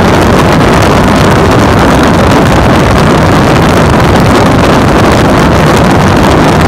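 Loud, steady wind rushing over the microphone of a phone held by a rider on a moving Harley-Davidson motorcycle at highway speed, with the motorcycle's engine and road noise mixed in.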